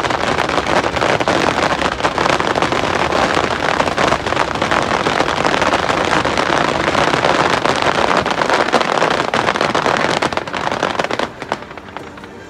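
Rapid-fire fireworks barrage: many shells bursting at once in a dense, continuous crackle that falls away about eleven seconds in.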